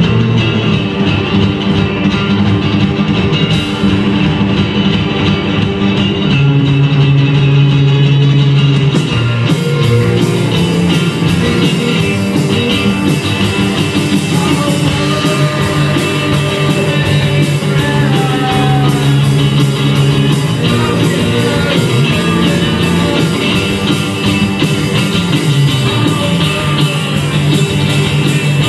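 A live rock band playing: violin over electric guitar, electric bass, keyboard and drums. The sound gets fuller and brighter about nine seconds in.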